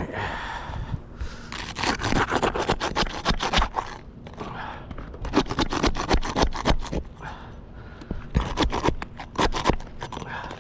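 A hand tool scraping and clicking under roof shingles in three bursts of quick strokes, working loose the nails of the shingles above a damaged one.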